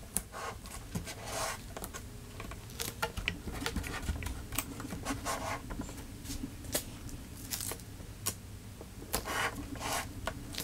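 Blue painter's tape being pulled off the roll and pressed down by nitrile-gloved hands: short peeling rips every second or two among small clicks and rustles, over a faint steady hum.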